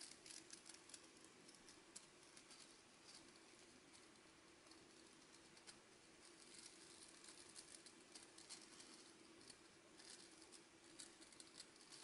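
Fingertips brushing and flicking the stiff plastic bristles of a scrubbing brush: a quiet, crackly patter of many tiny ticks. It comes in flurries, at the start, again in the second half, and near the end.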